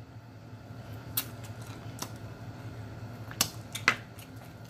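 Close-up mouth sounds of a man eating shrimp: chewing and lip-smacking, with a few sharp wet clicks, the loudest two a little past three seconds in, over a low steady hum.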